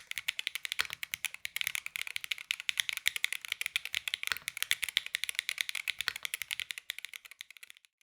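Keyboard fitted with Kailh White Horse magnetic (Hall-effect) switches being typed on quickly: a fast, dense run of keystrokes that stops just before the end.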